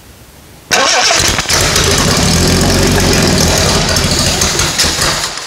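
Carbureted Jaguar 4.2-litre DOHC inline-six catches suddenly about a second in and runs loudly for about four seconds, then fades away as it dies. It is a start that won't keep running, which the crew puts down to carburetor jets that need pulling apart and checking.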